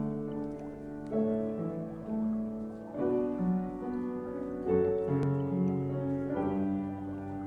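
Slow, gentle piano music, with a new chord struck every second or two and left to ring.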